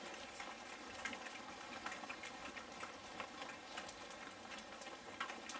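Footsteps of a group jogging around a hall floor: a faint, quick, irregular patter of many light steps.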